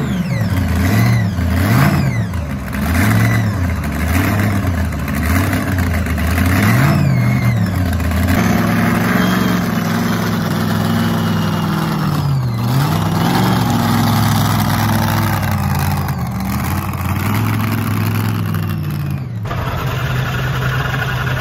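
V8 engine of a mini pulling tractor, running through short open exhaust stacks. It is blipped up and down several times in the first eight seconds or so, then held at a steadier, higher speed with one brief dip about halfway.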